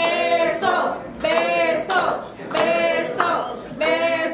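Voices singing a short repeated phrase, a sung line about every second and a quarter, with sharp claps between the lines.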